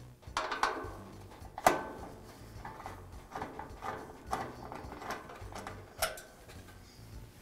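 Screwdriver backing a screw out of a stainless-steel grill control panel while the panel is handled: a string of sharp metallic clicks and scrapes that ring briefly, the loudest about a second and a half in and again about six seconds in.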